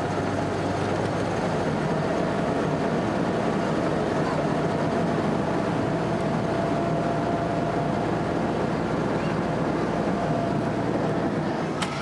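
Engine of an army DUKW amphibious vehicle running steadily as it moves across the water, a constant drone with a faint held tone.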